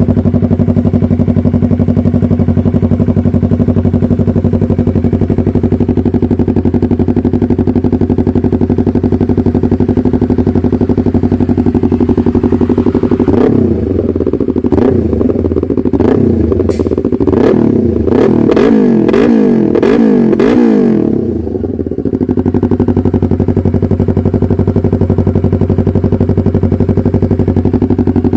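Yamaha MT-03's parallel-twin engine through an SC Project full exhaust, idling steadily, then revved in a run of quick throttle blips for about eight seconds, each rising and falling in pitch, before settling back to idle.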